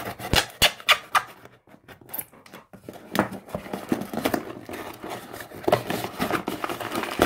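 A knife slitting a cardboard mailer box, with sharp scratchy clicks in the first second or so, then cardboard rasping and tearing as the box is pulled open.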